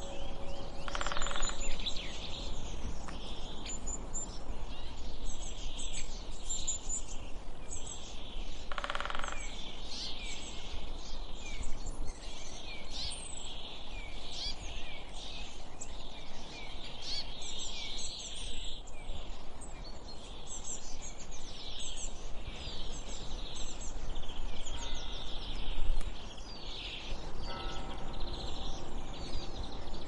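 Birds singing and chirping in a dense, continuous chorus over a low steady background rumble.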